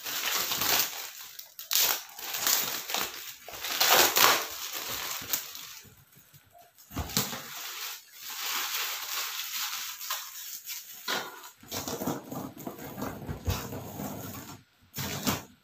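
Irregular bursts of crinkling and rustling from a coil of plastic-coated aluminium wire being unwrapped and handled, with a quieter lull about six seconds in.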